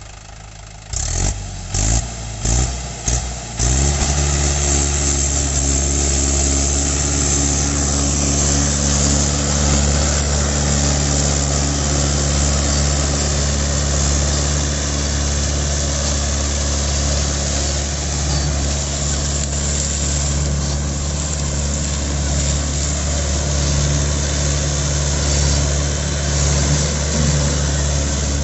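Mahindra 575 DI tractor's four-cylinder 2730 cc diesel engine working hard while pulling a heavily loaded sugarcane trolley. A few short, loud bursts in the first few seconds give way, about four seconds in, to a steady, loud engine note.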